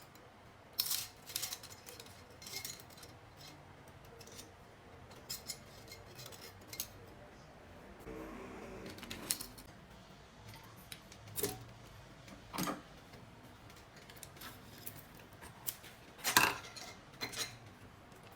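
Metal engine parts and hand tools clinking and clattering as they are handled, a string of sharp, irregular clinks and knocks with the loudest about sixteen seconds in.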